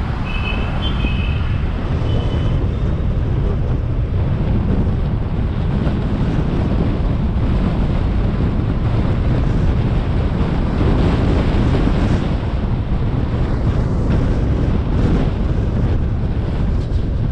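Wind buffeting the microphone of a camera on a moving car, over steady road and traffic noise. A few brief high chirps sound in the first couple of seconds.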